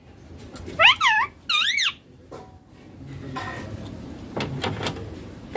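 Baby ringneck parakeet giving two loud, wavering calls in quick succession about a second in, followed by soft rustling and a few faint clicks.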